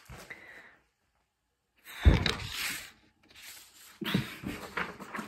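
A woman's heavy sigh blowing into the microphone about two seconds in, with a low thump as the breath hits it, followed by softer rustling and handling noise.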